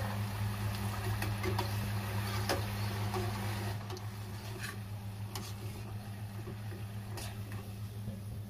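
Battered potato fingers frying in hot oil: a faint sizzle with scattered sharp clicks and pops as they are lifted out with a slotted spoon, over a steady low hum.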